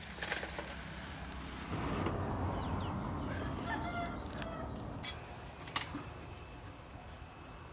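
A rooster crowing once, starting about two seconds in and lasting about three seconds. Two sharp knocks follow near the end.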